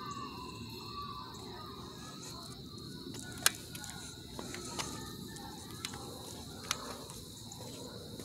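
Crickets chirring in a steady high chorus over low outdoor background noise, with a few sharp clicks, the loudest about three and a half seconds in.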